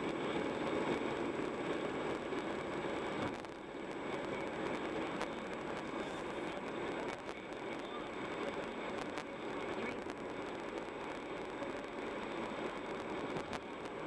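A car driving at steady speed: continuous road and tyre noise with engine hum, dipping briefly about three seconds in.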